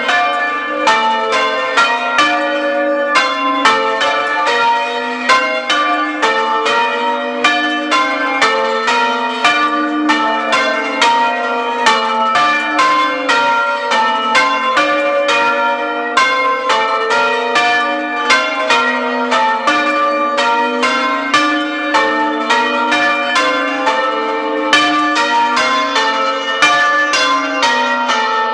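Church bells being change-rung open, without muffles, heard close up in the tower: an even, unbroken run of strikes, about three a second, each note ringing on into the next.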